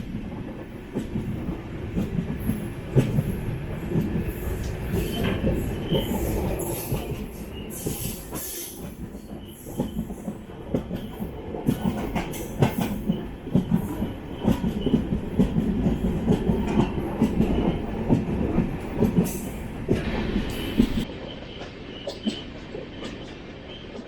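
Passenger train coaches running along the track: a steady rumble with clatter of the wheels over the rails, and a thin high squeal of the wheels at times, around the first quarter and again near the end.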